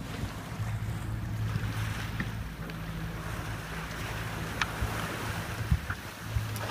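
Sea water rushing along a sailing yacht's hull as it moves through choppy water, with wind buffeting the microphone. A low steady hum runs under it, dropping out for a moment about four seconds in.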